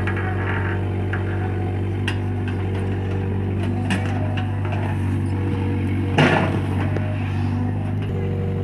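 Excavator's diesel engine running steadily, with a few sharp metallic knocks and a louder clank about six seconds in.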